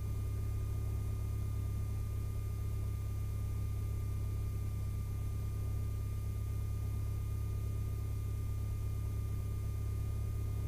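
Lycoming IO-360-A1A four-cylinder fuel-injected aircraft engine idling steadily after a cold start, heard in the cockpit as an even low drone, with a faint steady high tone over it.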